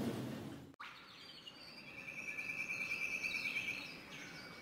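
A high, rapid chirping trill, bird-like, swelling about two seconds in and fading near the end.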